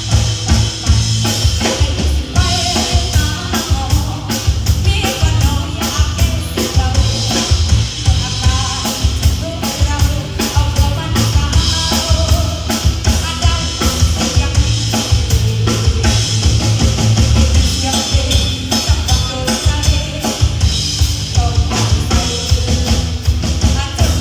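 A live band playing a song: a steady beat on a drum kit over heavy bass, with a lead melody on top.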